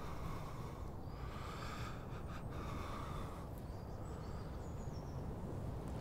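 A man's laboured, heavy breathing in slow swells, over a steady low wind rumble with a few faint bird chirps.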